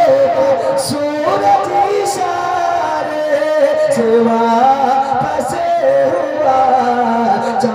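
A man singing a naat, an Urdu devotional poem, in long held notes that bend and waver, amplified through a stage microphone.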